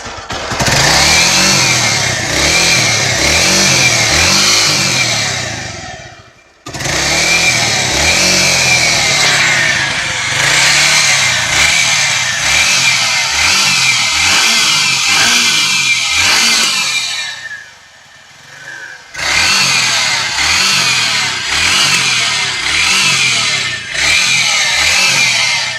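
Motorcycle engine revved again and again in short blips, the pitch rising and falling each time, dropping off sharply about six seconds in and going quieter for a moment around eighteen seconds in. It is making an abnormal engine noise that the owner takes to need the whole engine opened up, not just the top end.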